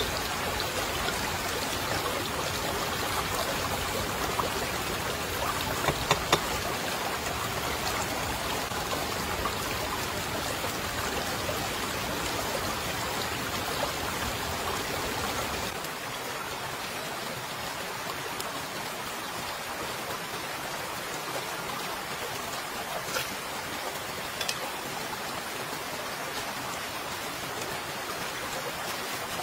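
Shallow jungle stream running over rocks: a steady rush of water, a little quieter and thinner about halfway through, with a few faint clicks.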